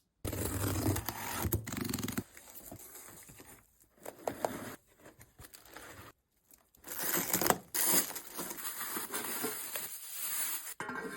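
Unboxing a packaged steel tabletop fireplace: packing tape and cardboard tearing, with packaging scraping and crinkling, in several stretches that break off abruptly.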